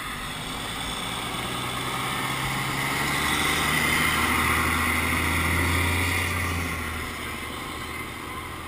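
Engine of a tiller ladder fire truck running as the truck drives past close by, a steady low hum that swells and then eases off near the end.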